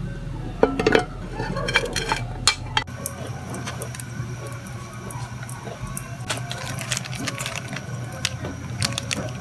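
Pot and clam shells clattering, with a few sharp knocks in the first three seconds, then lighter scattered clicks and plastic-packet crinkling over a steady low hum.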